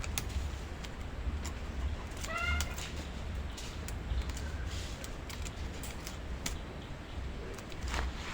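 Scattered light clicks and knocks over a low rumble, with one short pitched call, rising then falling, about two seconds in.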